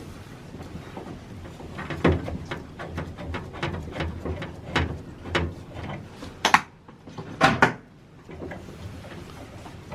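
Clicks, taps and knocks of hands handling small fittings as the caps are screwed back onto a tankless water heater's service valves, with a few sharper clacks about six and a half and seven and a half seconds in.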